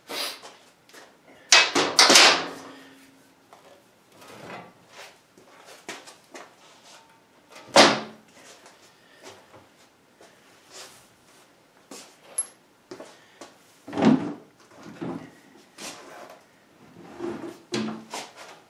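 Several separate metal clanks and knocks as parts and tools are handled and set down on the lathe stand's sheet-metal chip pan. The loudest come about two seconds in and near eight seconds, with more near the end.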